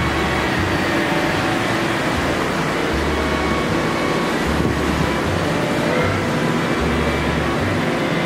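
Several O-gauge model trains running on a layout at the same time: a steady rolling noise of wheels on track, with a low rumble that comes and goes every second or so.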